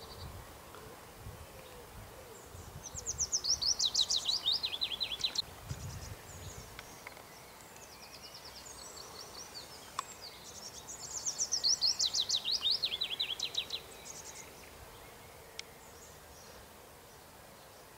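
Outdoor background with a songbird singing twice, each song a fast run of notes falling in pitch and lasting about two and a half seconds.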